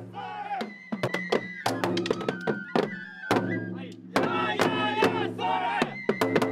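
Japanese festival music: a high flute plays held notes that step between two pitches, over frequent drum strikes, with voices chanting in stretches.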